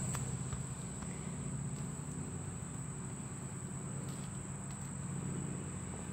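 Insects trilling in one steady, high-pitched tone, with a few faint clicks.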